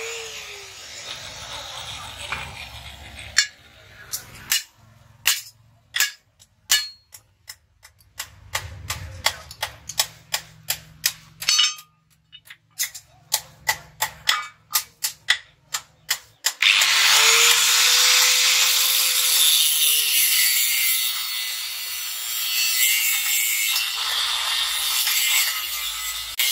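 An angle grinder's cutting disc winding down off the steel, then a long run of sharp hammer blows on a steel leaf-spring strip, roughly two a second. About sixteen seconds in, the grinder cuts into the steel again with a loud, harsh grinding.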